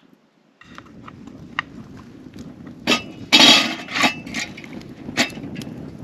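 Metal camping pot and lid clinking and clattering against the fire stones as the pot is set into a burning campfire. The loudest clatter comes about halfway through, over the steady crackle of the wood fire.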